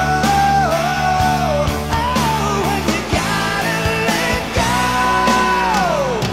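Hard rock band recording with drums and bass under a sustained lead melody that holds long notes, bends and slides, gliding down in pitch near the end.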